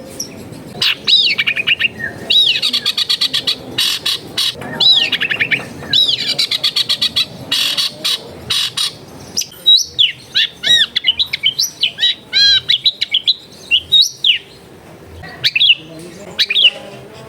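Long-tailed shrike (cendet) singing a varied song: fast chattering trills in the first half, then separate whistled notes that slide up and down.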